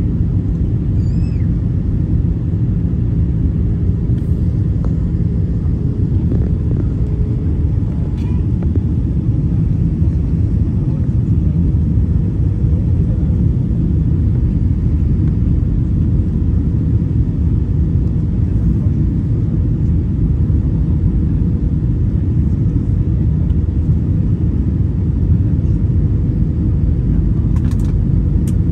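Airliner cabin noise during the descent: a steady low rumble of the jet engines and air rushing past the fuselage, with a faint steady hum early on and a few faint clicks near the end.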